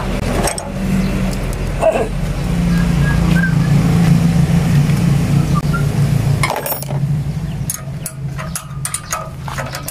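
An engine running with a steady low hum that swells after about two seconds and drops in level about six and a half seconds in, with a few sharp knocks along the way.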